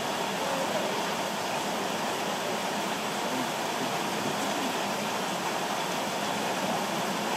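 Heavy rain falling steadily, an even hiss with no break or change.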